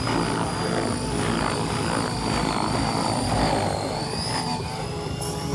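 Radio-controlled model helicopter flying, its motor and rotor giving a steady high whine that wavers slightly in pitch.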